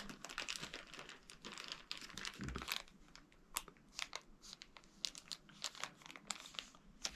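Wrappers crinkling and rustling in irregular little crackles as small packets of salt are handled and pushed back into their packaging.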